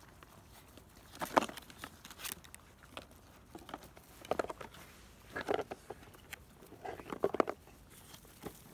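Labrador retriever puppies, 39 days old, eating side by side from plastic bowls in a cardboard box: irregular bursts of clicking, clattering and rustling as they eat and jostle against the bowls and cardboard.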